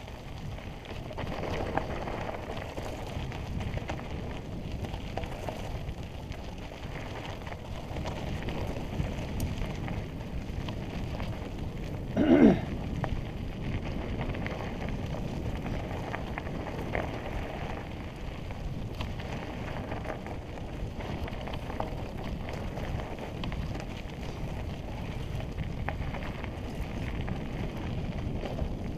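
Mountain bike rolling down a dry dirt single track over loose rocks: a steady rumble and crackle of the tyres on dirt and gravel and the bike rattling. About twelve seconds in comes a brief, loud pitched sound.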